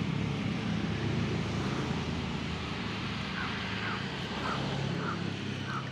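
Steady low machine hum with a hiss over it, like a motor or engine running. In the second half, faint short chirps repeat about twice a second.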